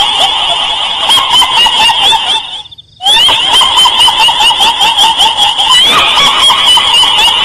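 Dense, continuous chattering calls, many overlapping at once, which cut out for about half a second near the middle and then resume.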